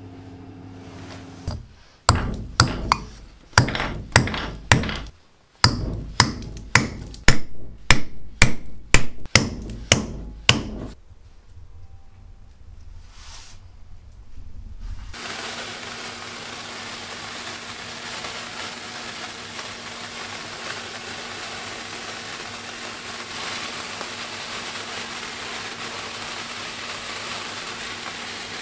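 Steel hammer driving a nail into a wooden block: about twenty sharp strikes at roughly two a second, stopping about eleven seconds in. A few seconds later, sparklers start fizzing with a steady hiss.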